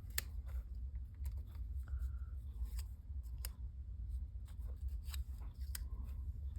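Irregular light clicks and taps of cut card-stock pieces being handled and shifted about on a craft desk, over a steady low hum.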